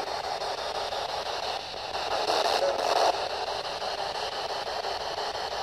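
Steady static hiss with no low end, running on without a break.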